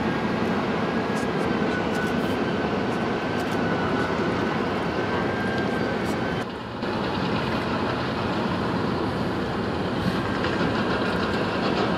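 Steady roar of wind buffeting the microphone high up in the open, with a faint thin whine through the first half and a brief dip about halfway through.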